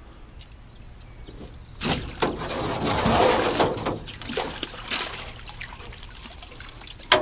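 Water splashing and sloshing in a fish holding tub as a long-handled dip net is plunged in and worked through it, loudest about three seconds in, then a few smaller splashes and a sharp knock near the end.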